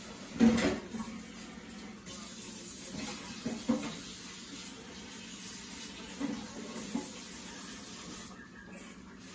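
A few short knocks and clatters of household objects being handled, over a steady background hiss; the loudest comes about half a second in.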